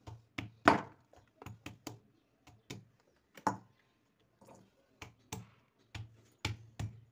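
Pestle of a mortar striking green olives on a plastic sheet, about a dozen sharp knocks at an uneven pace, the loudest near the start: each blow cracks an olive open for curing.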